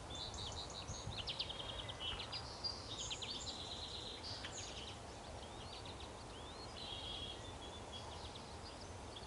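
Several songbirds singing and calling at once: quick series of high chips, rapid trills and buzzy trills, over a low steady rumble.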